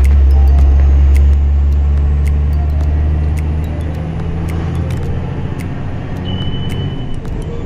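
Steady low rumble of a moving vehicle heard from inside the cabin, engine and tyres on a wet concrete road, with scattered faint ticks. A brief high steady tone sounds near the end.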